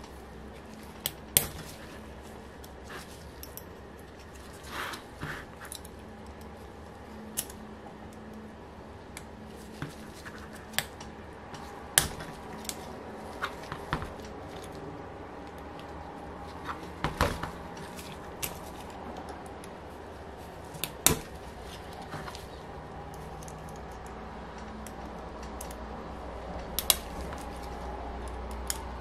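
Irregular sharp metallic clicks and clinks of a small hex key and the parts of an OS FF-240 Pegasus model engine being handled and set down while its cylinders are taken off, over a faint steady hum.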